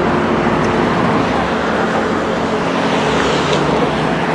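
Steady road traffic noise: cars driving past on the road alongside.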